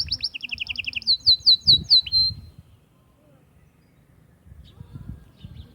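Male canary singing: fast trills of rapidly repeated notes, first high and then lower, then a run of loud downward-sweeping notes that ends about two and a half seconds in. Faint scattered chirps follow.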